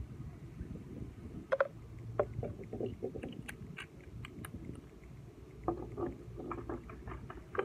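Small glass essential-oil bottles and their dropper caps being handled and set down on a wooden deck: scattered light clicks and knocks, in two clusters, over a steady low rumble.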